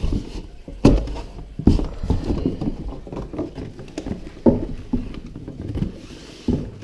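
A cardboard box being opened by hand, with irregular knocks and thumps of the lid and flaps and scraping and rustling of cardboard between them.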